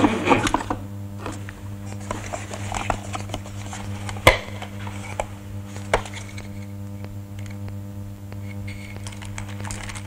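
Small clicks and rattles of rummaging through a wooden drawer and box for a button, with a sharp knock about four seconds in and another near six seconds, over a steady low hum.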